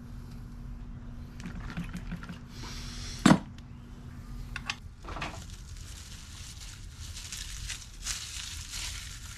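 Plastic sheeting crinkling and rustling as a raw whole pig on a spit is handled and turned over on it, with one sharp knock about three seconds in.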